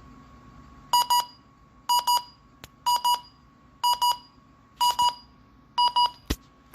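An electronic alarm beeping: pairs of short, shrill beeps about once a second over a faint steady tone. A sharp click comes near the end.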